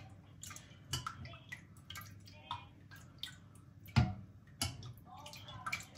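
Thick homemade yogurt being spooned out of its container into a blender jug: irregular wet plops and squishes with light clinks of the spoon, and a louder knock about four seconds in.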